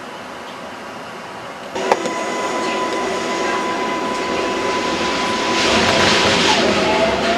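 New York City subway car on the elevated 4 line pulling out of a station. It starts with a steady hum, then about two seconds in a sharp click and a jump to louder running noise as the car gets moving. Steady motor whine tones run under the noise, and near the end one of them climbs in pitch as the train gathers speed.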